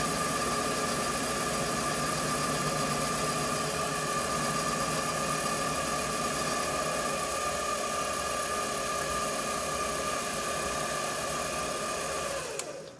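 King Canada 7x12 variable-speed mini metal lathe running with a steady motor-and-gear whine while the power feed carries the tool on a light cleanup pass over an aluminium piece. Near the end it is switched off and winds down, its whine falling in pitch.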